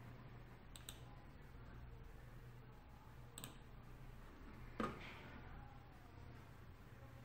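Three faint clicks over a low steady hum, about one, three and a half and five seconds in; the last is the loudest, with a short dull thump under it.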